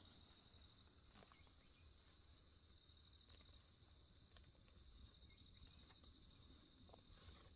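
Near silence: a faint steady high-pitched insect drone, with a few soft ticks and snaps as greens are plucked by hand.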